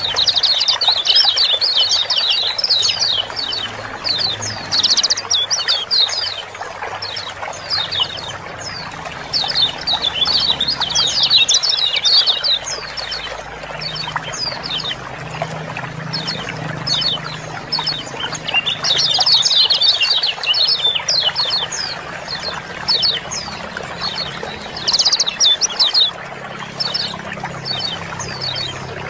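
Lemon-bellied white-eyes (kecial kuning) giving rapid, high 'ciak-ciak' chirping calls in busy bursts of a second or two, recurring every few seconds, over a steady sound of running water.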